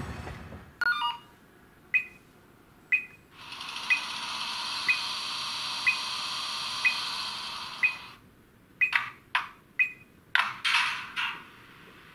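Sound decoder of a PIKO H0 model EU07 electric locomotive playing its standstill sounds through the model's small speaker. A short falling run of tones comes first, then sharp ticks about once a second, a steady hiss for several seconds, and near the end a rapid string of sharp clicks and short hisses.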